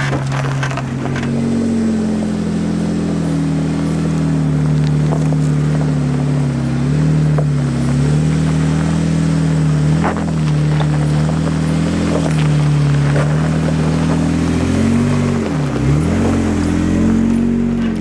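Jeep Wrangler JK's engine running at low revs as it crawls along a rocky gravel trail towing an off-road camper trailer. The engine note wavers up and down, dips sharply and comes back up about fifteen and a half seconds in, with scattered crunches and clicks of tyres over gravel.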